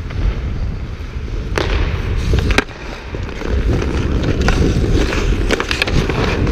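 Ice hockey skates scraping and carving the ice, with a few sharp clacks of stick and puck. It is picked up by a camera worn by the skater, under a heavy rumble of wind and movement.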